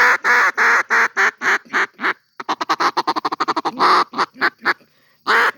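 A homemade reed duck call blown by mouth: a run of quacks, then a quick chatter of short notes, then a few more quacks ending on a long one. The call is still rough and not yet fully tuned.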